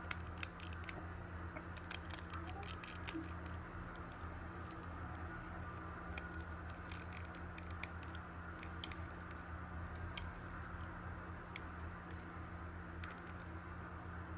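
Small, irregular clicks and ticks of repair tools working on the internals of an opened iPhone 6s, over a steady low electrical hum.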